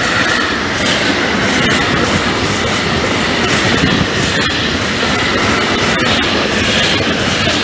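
Container freight train's loaded flat wagons rolling past close by: a steady, loud rolling noise of steel wheels on rail, with a few sharp clacks as wheelsets cross rail joints.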